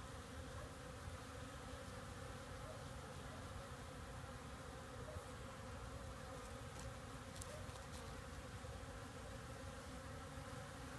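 Bees buzzing steadily as they forage for pollen in cactus flowers, an even hum throughout.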